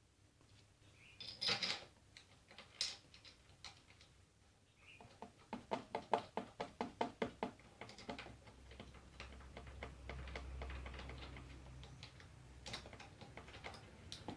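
Small metal parts clicking and clinking as a Huffy Slider's front wheel quick release is worked on, with a run of rapid, even ticks, about five a second, for a few seconds in the middle that die away.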